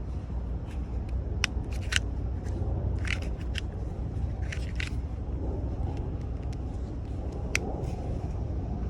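Quinn pistol-grip wire strippers clicking as they are worked, a series of sharp clicks, some in quick pairs, over a steady low rumble.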